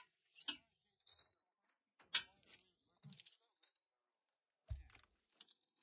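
Sparse clicks and knocks of metal hardware, with a sharp click about two seconds in and a low thump near the end, as a pickup's rear swing-out tire carrier is opened and its rooftop tent is unlatched for setup.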